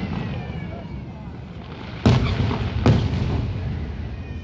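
Aerial fireworks shells bursting: two loud booms about two seconds in and again under a second later, each trailing off in a low rumble, with crowd voices underneath.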